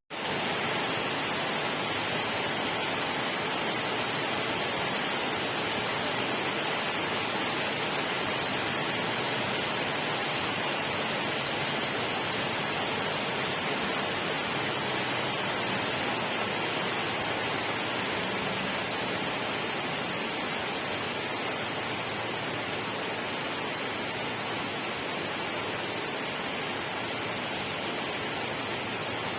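Steady, even rush of falling water, starting just after a brief drop-out at the very beginning and holding constant throughout.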